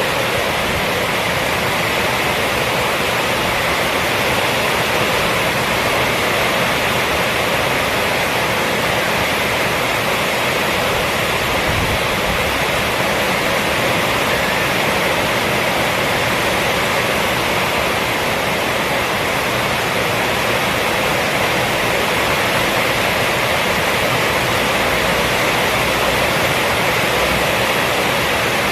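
Steady heavy rain falling on a roof, an even, unbroken hiss.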